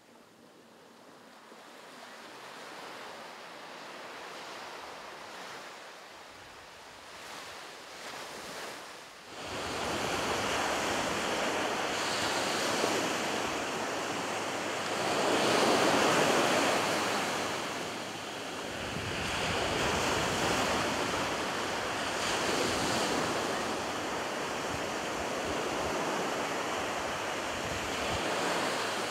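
Ocean surf: waves washing onto a shore, a steady rush of noise that swells and ebbs every few seconds. It is faint at first and grows much louder about a third of the way in.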